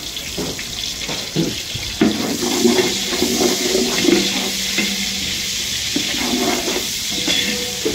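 Steady rushing hiss from sliced onions cooking in a large aluminium pot as a ladle stirs them, with a few brief knocks.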